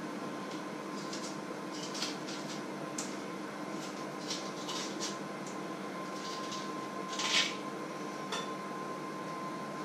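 Scattered light crackles and scrapes of hands peeling and handling eggs at a kitchen counter, the loudest scrape about seven seconds in. Underneath, a steady electrical hum with a faint constant high whine.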